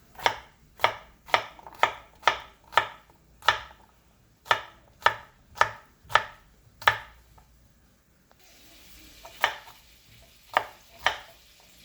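Knife chopping cucumber into cubes on a cutting board: about a dozen sharp chops at roughly two a second, then a pause and three more.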